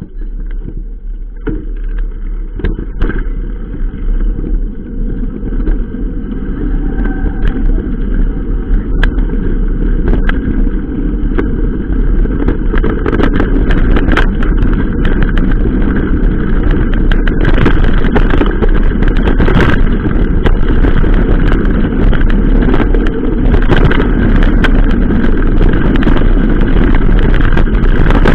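Wind rushing over the microphone together with the rumble and rattle of a mountain bike rolling over a rough dirt-and-gravel road, growing louder over the first several seconds as the bike gathers speed, with many small knocks from bumps in the track.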